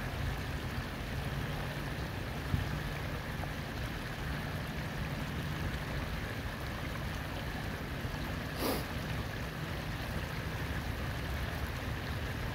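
Steady rush of flowing water running over rocks, with one short knock about two and a half seconds in and a brief swish near nine seconds.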